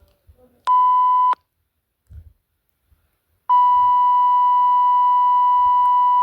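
Beep sound effect from CapCut's sound library: one short steady beep about a second in, then a long beep starting about halfway through that is still sounding at the end.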